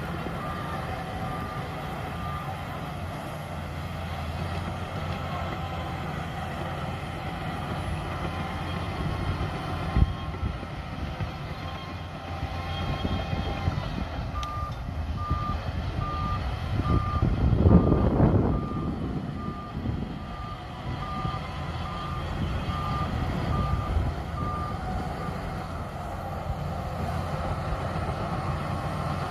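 Heavy diesel engine of a Shantui DH17C2 bulldozer running steadily, with its reversing alarm beeping about once a second at the start and again through the second half. A single knock about a third of the way in and a loud rumbling swell of the engine just past the middle.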